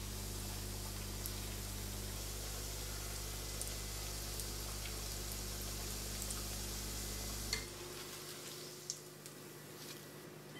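Breaded chicken nuggets sizzling in hot olive oil, a steady sizzle with occasional small crackles. It cuts off with a click about seven and a half seconds in, leaving a fainter hiss.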